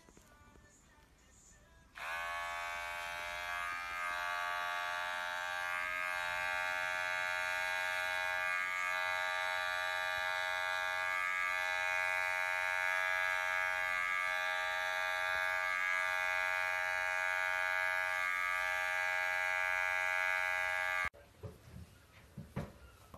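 Electric pet hair clipper switched on about two seconds in, its motor coming up to speed and then running with a steady buzzing hum as it trims a cat's fur; the sound cuts off suddenly near the end.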